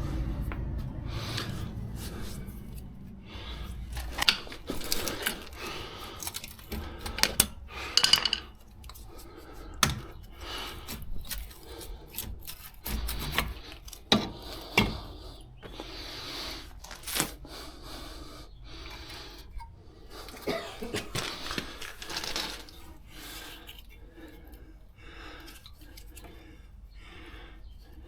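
Hand tools and metal car parts clinking and knocking at irregular intervals during brake work, with a low rumble that fades out in the first few seconds.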